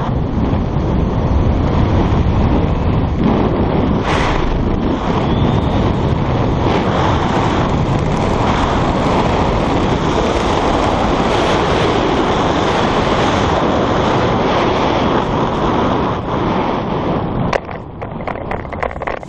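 Rushing air buffeting a skydiver's camera microphone, a loud, steady roar. It drops off sharply about two seconds before the end, leaving some short rustles and knocks.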